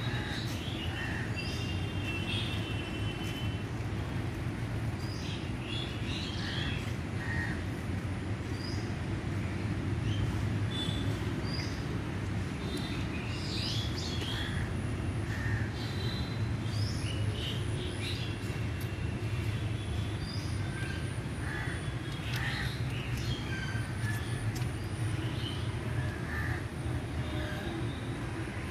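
Birds calling in short, scattered cries over a steady low rumble.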